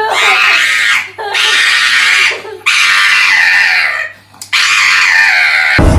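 Small brown curly-coated dog wailing loudly in four long, wavering cries with short breaks between them. Music cuts in abruptly at the very end.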